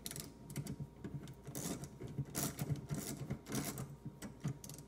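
Socket ratchet wrench clicking in quick, irregular runs as it snugs the nut that holds a windshield wiper arm onto its wiper transmission stud.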